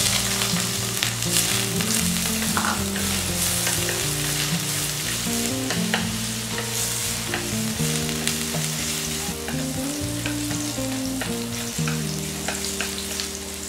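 Julienned ginger sizzling as it fries in hot cooking oil in a pot, stirred with a utensil that clicks against the pot now and then.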